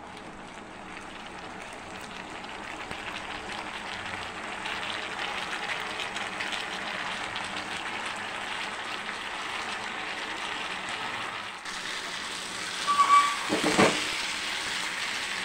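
Potato and drumstick pieces frying in hot oil in a non-stick kadai, a steady sizzle that grows louder, with a metal spoon stirring and scraping through them. A few louder clatters of stirring near the end.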